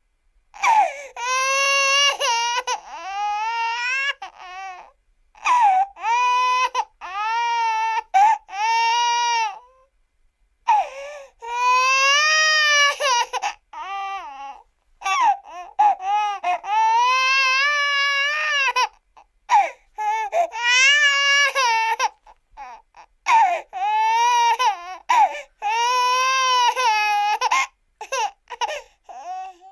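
Cartoon crying sound effect: a high-pitched voice wails and sobs in a string of drawn-out cries with a quavering, wobbling pitch, broken by short gasping pauses.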